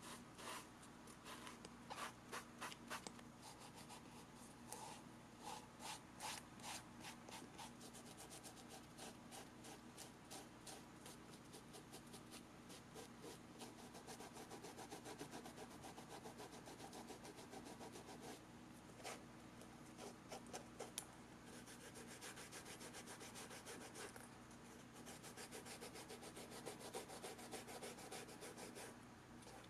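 Small square of sandpaper rubbed in quick, short strokes over a suede sneaker upper and its rubber sole edge: a faint, rapid scratching that comes in runs with brief pauses.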